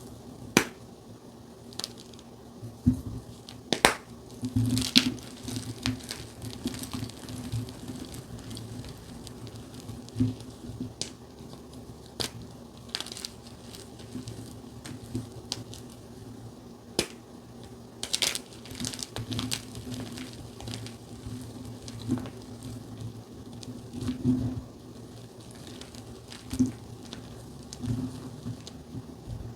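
Blocks of plain gym chalk being crushed by hand: irregular crunches and sharp snaps, some in quick clusters, with a steady low hum underneath.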